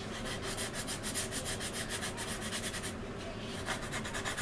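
Hand sanding along a seam on a resin scale-model aircraft fuselage: quick back-and-forth rubbing strokes of abrasive on resin, easing off briefly about three seconds in, as the seam is sanded flush.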